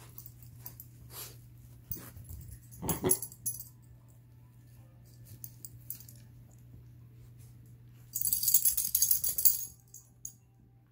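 Schnauzer puppies and adult dogs moving about on carpet, with a short, loud dog sound about three seconds in and a burst of high, rattling noise lasting about a second and a half near the end, over a steady low hum.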